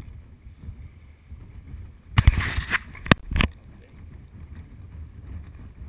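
Wind buffeting the microphone with a steady low rumble, and a loud gust of wind noise about two seconds in, followed by a sharp knock and a second short burst.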